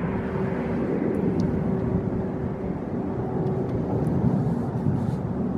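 Steady low engine rumble of nearby motor or air traffic, with a faint constant hum.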